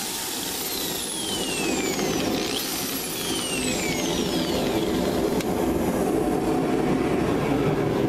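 A large electric air compressor runs steadily. Over it, a Makita electric drill is triggered twice, about two and a half seconds apart: each time its motor whine rises quickly and then falls away as the chuck spins down. The drill is being run to test that a newly wired outlet is live.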